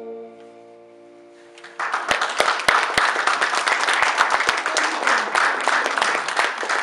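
The last held bassoon-and-piano chord dies away, then audience applause breaks out about two seconds in, with sharp individual claps in it.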